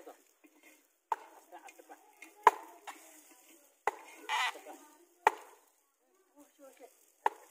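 Sharp chopping strokes, five in all, coming roughly every second and a half, with faint voices between them.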